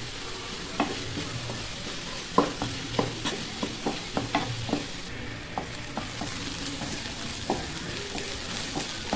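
Chopped onions frying in coconut oil in a non-stick kadai: a steady sizzle while they are stirred with a spatula, with irregular scrapes and knocks of the spatula against the pan, thickest from about two seconds in.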